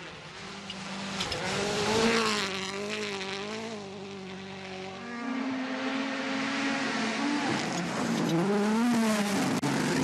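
Rally car engines at full throttle on a gravel stage, their pitch rising and dropping with gear changes and lifts of the throttle as the cars slide through corners, over a hiss of tyres on loose gravel. One car passes loudest about two seconds in, and another climbs in pitch over the second half.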